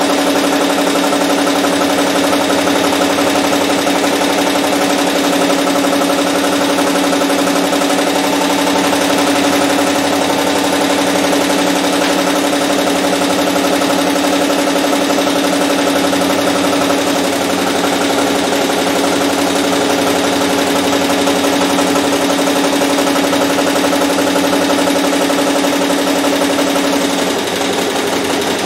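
A Barudan multi-needle embroidery machine is running at a steady pace, stitching lettering onto a cap, with a constant mechanical hum and rapid needle strokes. The tone shifts slightly near the end.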